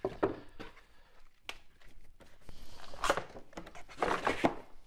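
Molded pulp packing inserts and a cardboard box being handled: rustling and scraping as the inserts are lifted out, with a sharp tap about a second and a half in and louder scrapes near three seconds and again toward the end.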